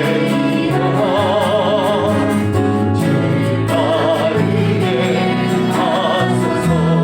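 Korean gospel worship song: voices singing long held notes with wide vibrato over steady instrumental chords and a light regular beat.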